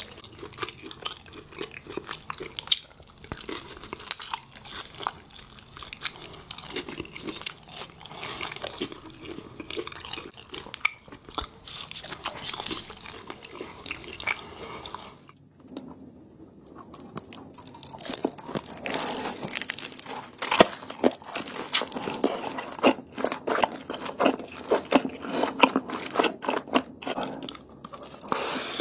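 Close-miked chewing and crunching of crispy fried birria tacos, with wet smacking between the bites. There is a short lull about halfway through, after which the crunching comes back louder and sharper.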